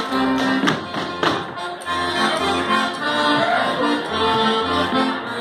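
Accordion-led Bavarian folk dance music for a Schuhplattler, with a few sharp slaps in the first two seconds.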